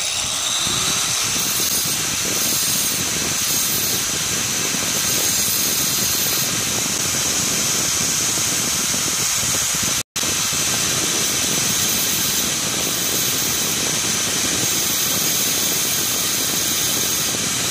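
Angle grinder with a diamond-coated disc running steadily while the end of a drill bit is ground flat, with a high whine over the grinding noise. The sound cuts out for an instant about ten seconds in.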